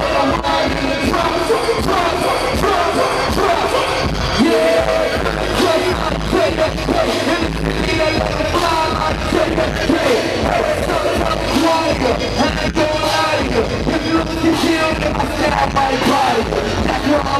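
Loud live hip hop music played through a concert sound system: a heavy bass beat with a rapper's voice over it.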